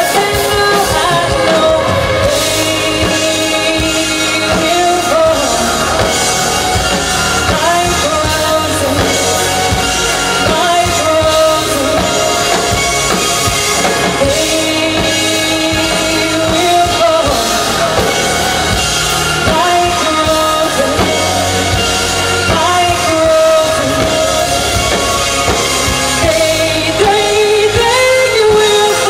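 Live band performing: a woman singing lead into a microphone over a drum kit and backing instruments, loud and continuous.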